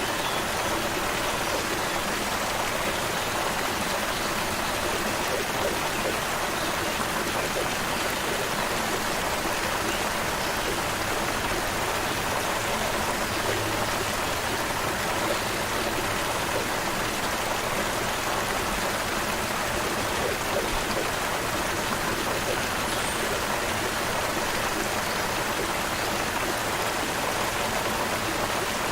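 Small stream babbling and rushing over stones, a steady, even wash of running water.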